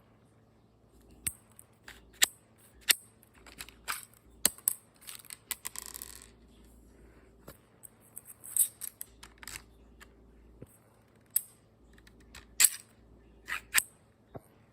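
Irregular sharp plastic clicks and snaps from a 3D-printed pistol being handled and worked, with a brief scraping rasp about six seconds in.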